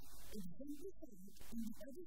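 A person's voice speaking in short phrases, its pitch rising and falling.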